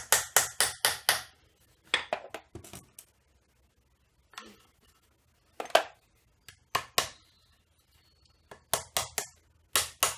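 Claw hammer tapping small nails partway into a thin strip of wood. The strikes come in quick runs of several blows, with single and paired taps and short pauses between.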